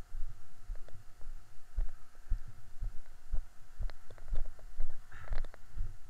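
Walking footsteps picked up as dull low thuds about twice a second, with clothing rustle and a faint steady hum.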